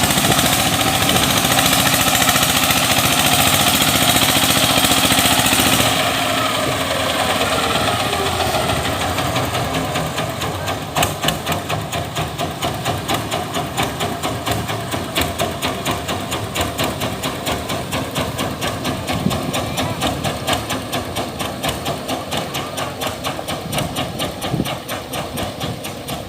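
Engine running loud and steady, dropping after about six seconds to a lower level with an even, pulsing beat of a few strokes a second.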